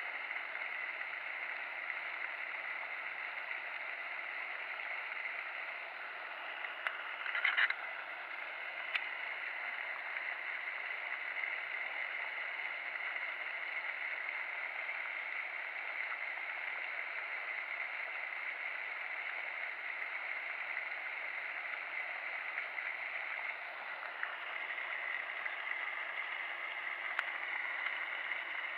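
Steady splashing hiss of a pond fountain aerator spraying water, growing a little louder late on, with a brief clatter about seven seconds in.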